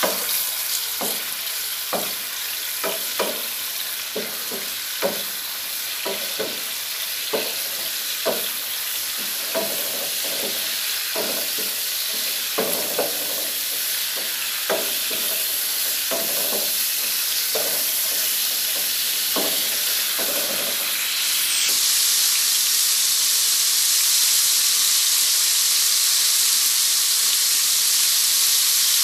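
Diced pork sizzling as it fries in coconut oil in a nonstick frying pan, being browned. A wooden spatula taps and scrapes the pan over and over as the pork is stirred. The stirring stops about two-thirds of the way through, and the sizzle then grows louder and steadier.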